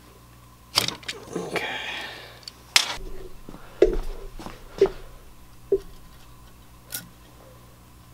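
Sharp metal clinks and knocks, about six spread out, with a brief rattle about a second and a half in, as a valve spring compressor is taken off a Yamaha Warrior 350 cylinder head and a valve spring is lifted out.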